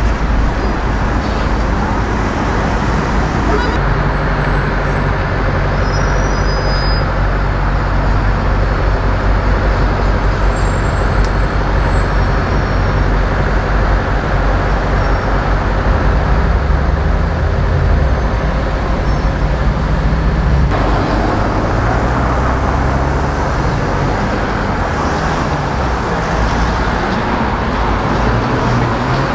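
Busy city street traffic: motor vehicles running and passing, with a steady low engine hum.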